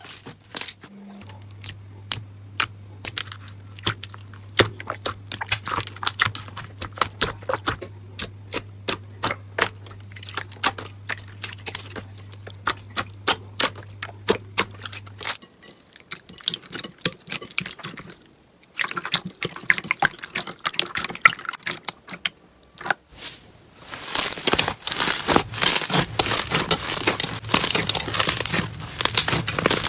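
Crunchy slime being squeezed and pressed, giving a rapid run of sharp crackles and pops that grows denser and louder in the last several seconds. A low steady hum runs underneath for roughly the first half, then stops.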